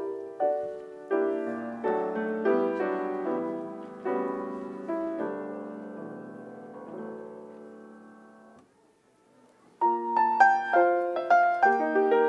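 Solo piano playing slow chords that die away about eight and a half seconds in. After a second of near silence it starts again, louder and higher.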